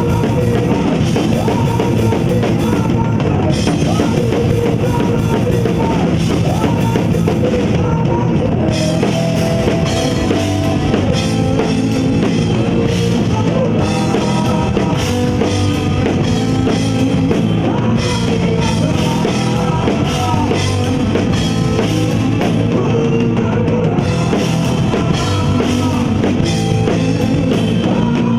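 Live rock music driven by a drum kit, played loud and without a break, with pitched instruments sounding over the drums.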